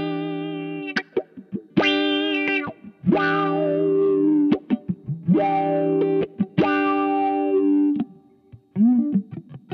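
Clean electric guitar strumming a run of ringing chord stabs through an EarthQuaker Devices Spatial Delivery V3 envelope filter in Up mode, each strum sweeping the filter upward. There is a short pause about eight seconds in, then a few bent single notes.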